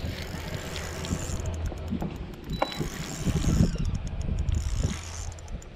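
Spinning reel being cranked as a hooked crappie is reeled in, with small clicks over a steady low hum.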